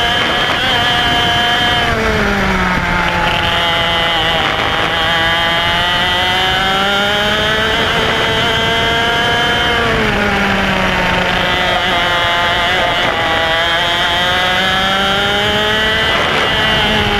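Single-cylinder IAME X30 125cc two-stroke kart engine at racing speed. Its pitch drops sharply as the throttle is lifted for corners, about two seconds in, again around ten seconds and near the end, and climbs steadily back up along each straight.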